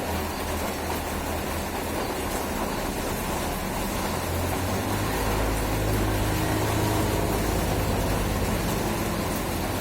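Steady rain hiss. About halfway through, a low rumble swells and then eases off near the end.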